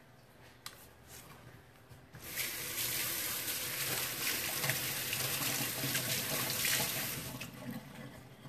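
Kitchen tap running, with water splashing over hands as avocado is rinsed off them. It comes on about two seconds in and is turned off about seven seconds in.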